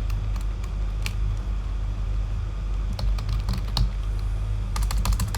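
Typing on a computer keyboard: a few scattered keystrokes, then a quick run of keys near the end, over a steady low hum.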